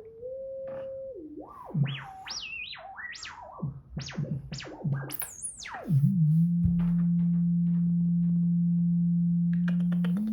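An electronic pure tone sliding up and down in quick swoops and warbles, then settling into one long, steady low hum that steps up slightly near the end.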